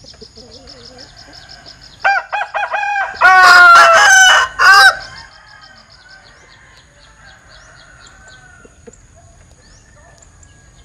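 'Linh kê' rooster crowing once, about two seconds in: an unusual broken crow of a few short notes running into a long held note, then a separate short final note, about three seconds in all.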